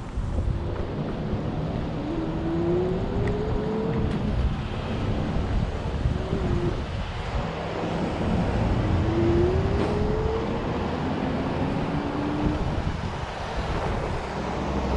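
Electric scooter rolling over a bumpy sidewalk: a steady low rumble and rattle from the wheels, with wind on the microphone. Two rising whines climb about two and nine seconds in.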